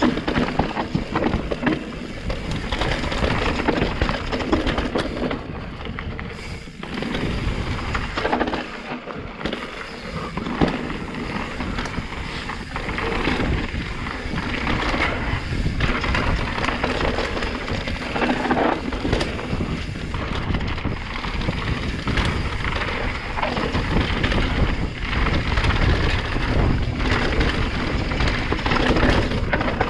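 Santa Cruz Megatower mountain bike descending a rocky enduro trail fast: continuous rattle and clatter of tyres and frame over stones and roots, with many small knocks. It eases for a few seconds about a quarter of the way through.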